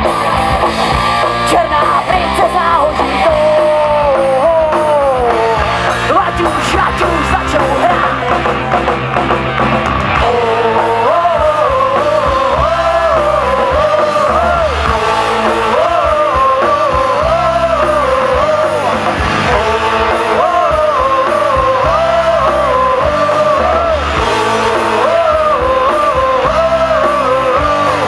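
Live rock band playing with electric guitars and drums, loud, with singing over the band that is clearest from about ten seconds in.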